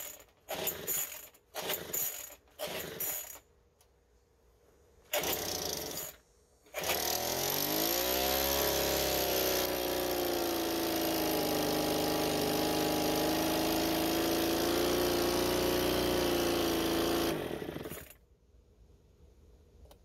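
Craftsman gas leaf blower's small engine being pull-started: several quick pulls of the recoil starter, then it catches about seven seconds in, revs up and runs steadily for about ten seconds before it cuts out. The stall fits the owner's diagnosis that the engine dies once the choke is opened to the run position because it is not getting the fuel it needs.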